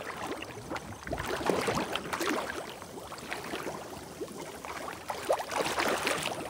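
Shallow water sloshing and splashing in irregular small bursts as people step through it while driving a fish toward a net.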